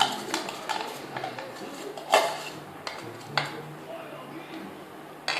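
A spoon clinking and scraping against a metal plate as a small child eats, in irregular clinks, the loudest about two seconds in.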